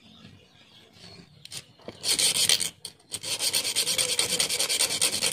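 Hand file rasping over a small metal piece that has just been cut with a hacksaw. A short burst of strokes comes about two seconds in, then a brief pause, then fast, even back-and-forth filing.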